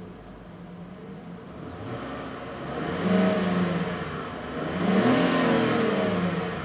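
Chevrolet Epica's engine idling in the stationary car, then revved twice, to about 3,000 and then about 4,000 rpm, each rev rising and falling back toward idle; heard from inside the cabin.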